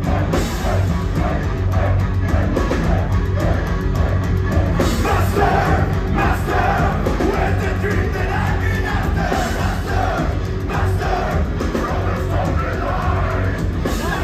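Heavy metal band playing live through a club PA with singing over the band, heard from among the audience with crowd shouts mixed in.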